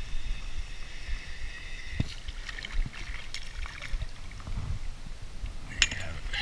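A hooked Australian bass splashing at the surface beside an inflatable kayak as it is reeled in, with a sharp knock just before the end as it comes out of the water. A steady high buzz runs through the first half.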